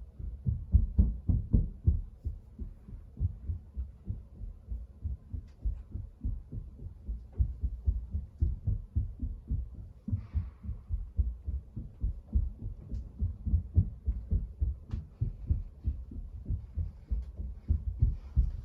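Heavy stomping footsteps on the floor of the apartment above, heard through the ceiling as low, muffled thuds, two to three a second, falling off near the end.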